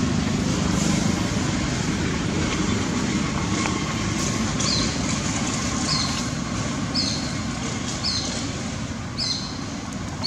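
Steady low rumble of a motor vehicle, slowly fading. From about halfway through, a short high chirp repeats roughly once a second.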